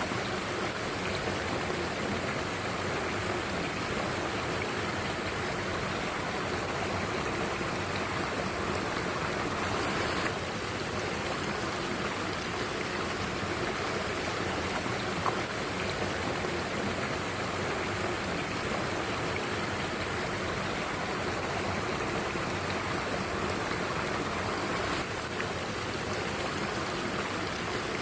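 Mountain stream water rushing steadily, with one brief click about fifteen seconds in.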